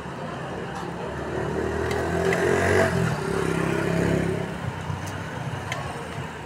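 A motor vehicle's engine passing close by, swelling for a few seconds in the middle and then fading away.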